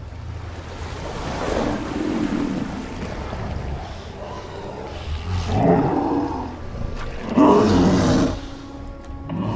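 Giant movie monster roaring three times in long, rough bursts over a steady low rumble, the loudest roar about three-quarters of the way through.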